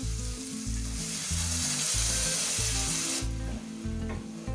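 Masala gravy sizzling hard in a hot kadhai just after water is added for the gravy. The sizzle is loudest in the middle and cuts off suddenly about three seconds in. Light background music with low repeating notes plays throughout.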